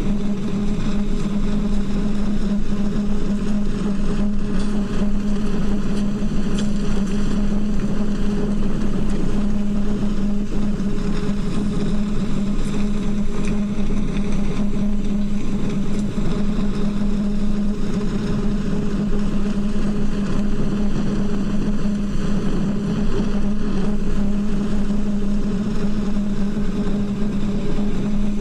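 Wind blowing through the steel pipes of the Singing Ringing Tree sound sculpture: a steady, low, held drone on one pitch over a constant rush of wind.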